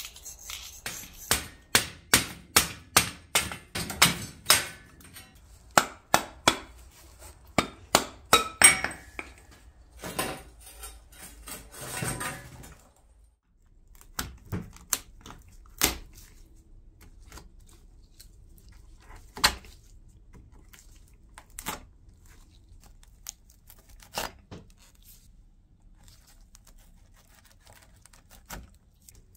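Quick run of sharp metal knocks and clinks as a screwdriver and pry bar are worked under a metal edge strip on a wicker pram body. About halfway through it gives way to scattered single clicks as pliers pull old tacks out of the lining along the wicker rim.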